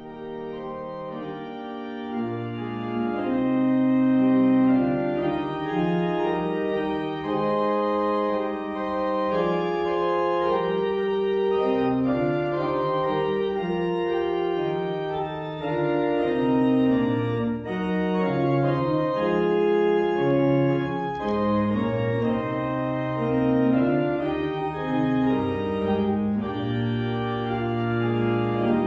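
Organ playing slow, sustained chords, starting softly and growing fuller over the first few seconds.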